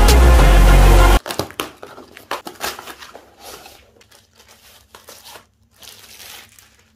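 Intro music with a heavy beat cuts off about a second in. Then a plastic courier bag crinkles as it is handled around a product box, loudest just after the music stops and fainter after that.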